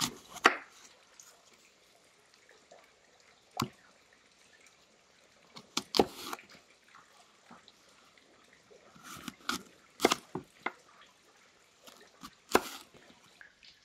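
A large knife slicing through crisp apples on a cutting board: short, sharp crunches with a knock as the blade meets the board, about seven times, a few seconds apart.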